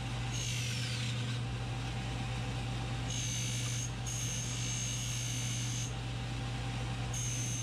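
Belt-driven buffing wheel running with a steady motor hum while a knife's guard and wooden handle are held against it. A high, thin whine rises from the contact in stretches: falling in pitch in the first second, then held for a few seconds from about three seconds in, and again near the end.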